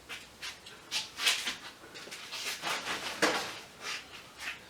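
Scrap light-fixture parts being handled and moved about: an irregular run of short rubbing and scraping noises.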